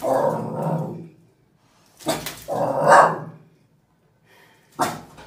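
A dog barking in two bouts about two seconds apart, with a single sharp slap near the end.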